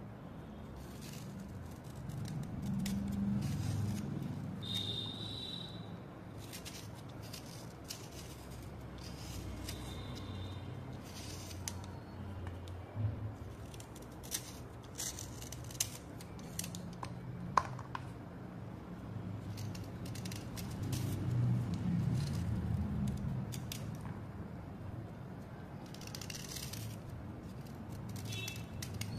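A metal blade scraping and shaving a wet slate chip, in short irregular strokes with an occasional sharp click, as thin curls of slate peel off. A low background rumble swells twice underneath.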